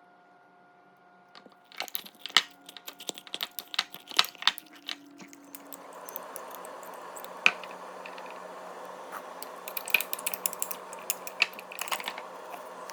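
Small hard objects clicking and clattering in quick succession for a few seconds, then a steady hiss sets in with scattered clicks and taps over it.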